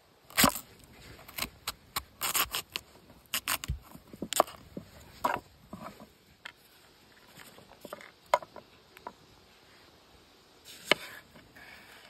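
Kitchen knife slicing squash on a wooden cutting board: an irregular series of sharp cuts and knocks as the blade goes through the flesh and strikes the board, the loudest about half a second in and another near the end.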